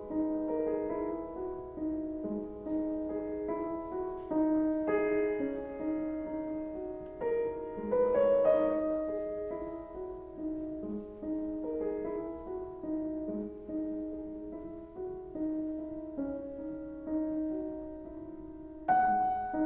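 Solo piano music, slow and classical, with notes held and overlapping.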